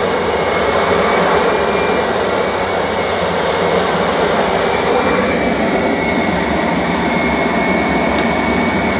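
Light aircraft's engine and propeller running steadily, heard inside the cockpit as the plane rolls along a gravel airstrip after landing, with a faint high whine that wavers in pitch.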